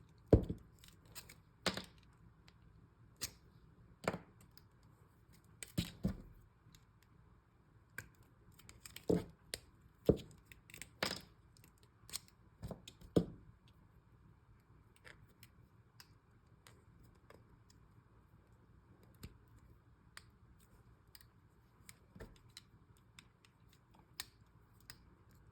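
Scattered clicks and small knocks of balisong spacers being taken out of the handles with a hex key and pushed back in. Most come in the first half, with only sparse faint ticks later.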